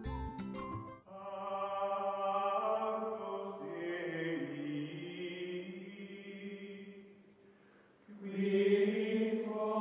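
Outro music: a brief plucked, clicky tune gives way to long held notes that fade out around seven seconds in and swell back in a second later.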